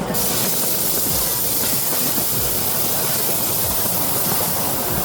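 Miniature steam locomotive letting off steam: a loud, steady hiss that starts suddenly.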